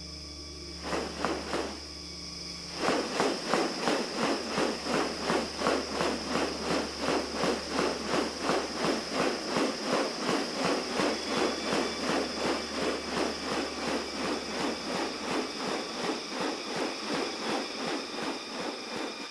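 Rainforest insects droning steadily and high-pitched. From about three seconds in, a fast, even pulsing joins them, about three pulses a second.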